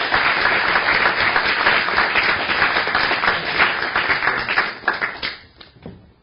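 Audience applauding: dense clapping by a seated crowd that thins out and dies away a little after five seconds in.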